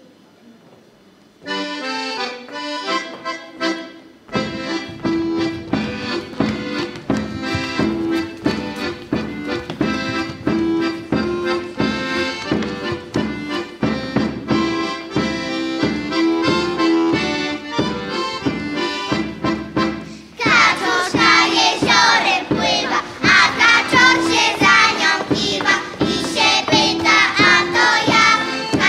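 Accordion playing a lively folk dance tune, joined by a drum beat about four seconds in. A children's choir starts singing along about two-thirds of the way through.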